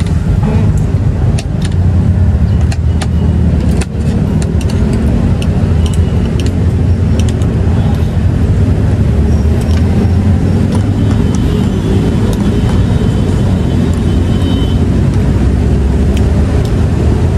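Steady rumble of road traffic, with scattered light clinks of a metal spoon and fork against a bowl.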